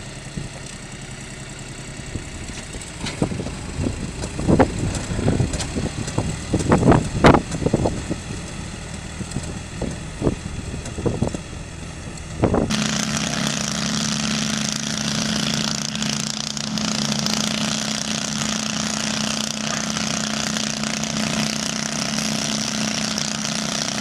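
Small compact tractor's engine running with its rear rotary tiller working the soil, with irregular loud knocks and thuds through the middle. About halfway through it changes abruptly to a garden tractor's engine running steadily under load as it pulls a weighted sled, with a constant whine and hiss.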